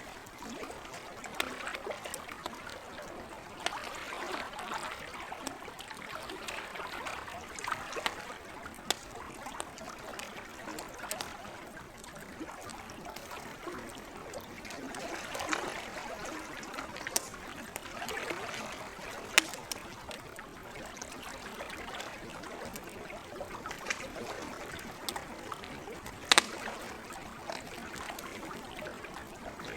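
Campfire crackling, with frequent sharp pops and a few louder snaps in the second half, over the steady trickle and lapping of lake water.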